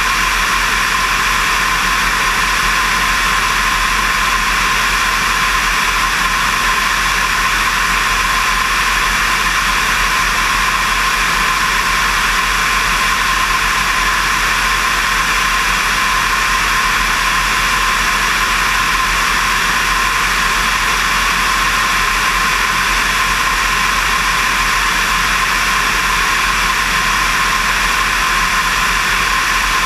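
Steady rush of airflow over a camera mounted on the wing of a light aircraft in flight, with a low engine drone beneath, unchanging throughout.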